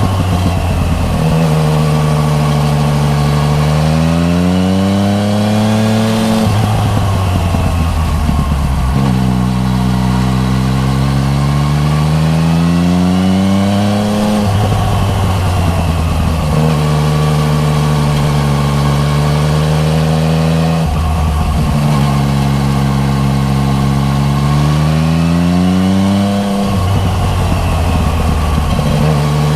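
A 2015 Yamaha MT-09 Tracer's 847 cc three-cylinder engine, breathing through an Akrapovic titanium full exhaust, heard from on board. It pulls up through the revs, drops back and rises again several times over, as the bike accelerates, shifts and slows along the road.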